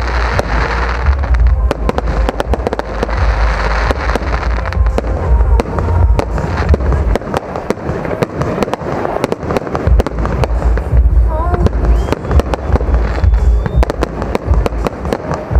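Aerial fireworks display: a rapid, dense series of shell bursts and sharp bangs with crackling, over a heavy low rumble.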